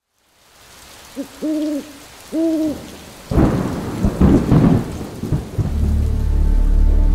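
Storm sound effect: rain fades in, an owl hoots twice, then thunder cracks and rumbles for about two seconds. A low, steady music drone begins near the end.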